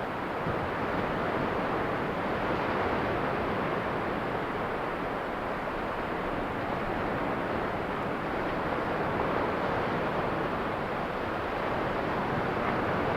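Ocean surf: a steady rush of waves washing in, swelling and easing gently.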